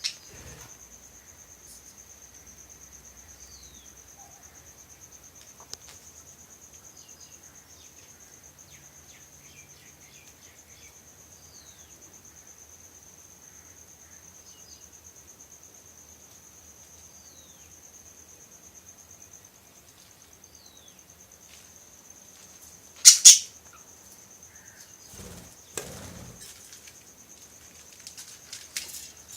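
A steady, high insect trill like a cricket's runs throughout, with faint short falling bird chirps scattered over it. One loud, sharp call comes about three-quarters of the way through, followed a few seconds later by a couple of low bumps.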